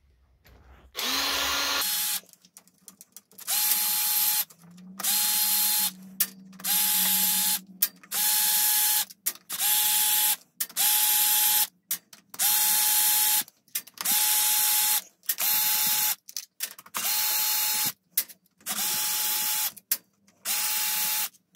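Power screwdriver or drill-driver running in about a dozen short bursts of roughly a second each, a steady motor whine each time, backing out the many screws of a scooter's variomatic (CVT) cover.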